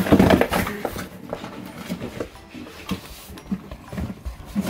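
A French bulldog nosing and pushing a cardboard box about the floor: scattered scrapes, rustles and light knocks of the box, with paw steps. The loudest part is in the first second.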